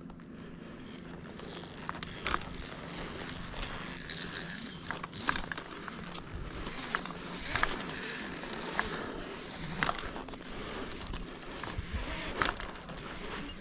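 A tree climber descending on a rope through a Zigzag mechanical friction device: rope and metal hardware sliding and rattling, with irregular sharp clicks and scrapes.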